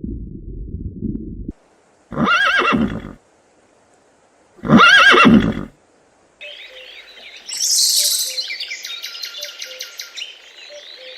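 A horse whinnying twice, each call about a second long, after a low rumble that cuts off near the start. From a little past halfway, birds chirp in a quick, ticking pattern.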